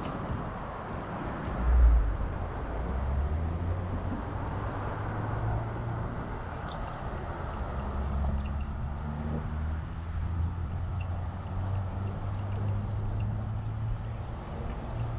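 City street traffic: vehicle engines running with a steady low hum over a general road noise, and one heavy low thump about two seconds in.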